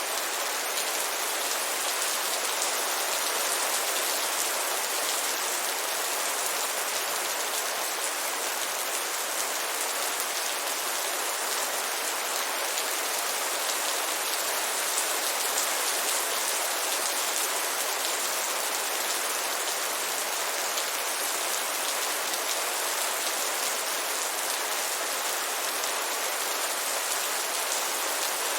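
Heavy rain falling steadily, a dense even patter with no thunder or pauses.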